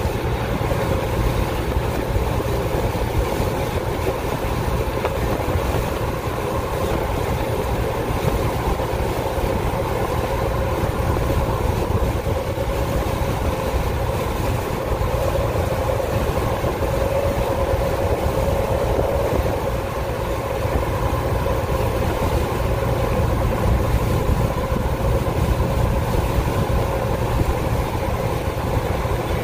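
A freight train's covered hopper cars rolling past at steady speed: a continuous low rumble of steel wheels on rail, with a steady whine running through it.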